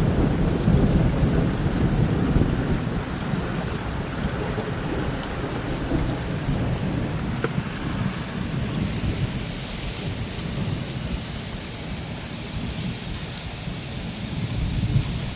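Heavy rain pouring down in a thunderstorm, with a low rumble of thunder. It is loudest in the first few seconds and then eases off a little.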